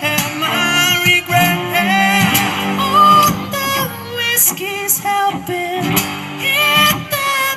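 Live band music: singing with no clear words over strummed guitar and a steady bass line.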